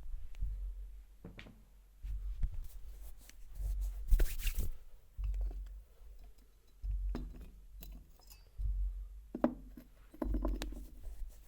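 Hands giving a head massage: a series of dull low thuds about every one and a half seconds, mixed with brief scratchy rubbing. The loudest burst comes about four seconds in.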